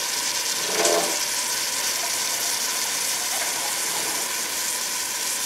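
Kitchen tap running steadily, filling the empty crushed-tomato can with water to rinse it out.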